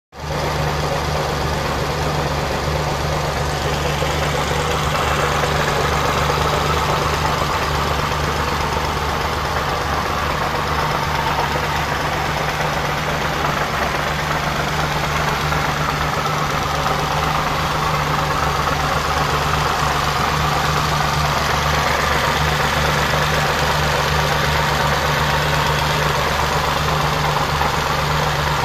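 BMW E30's M20 straight-six engine, fitted with individual throttle bodies and open velocity stacks, idling steadily.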